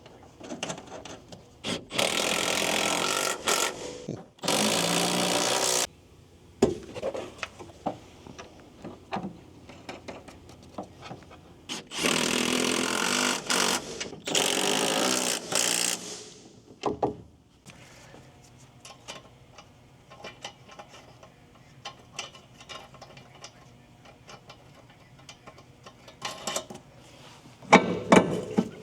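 Cordless impact wrench run in four bursts of a second or two each, in two pairs, driving in the bolts of a rear upper control arm. Light clinks and clacks of tools and parts between the bursts, and a short loud clatter near the end.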